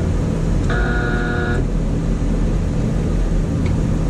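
Air-conditioning condensing unit humming steadily and low. About a second in, a brief horn-like tone sounds for just under a second.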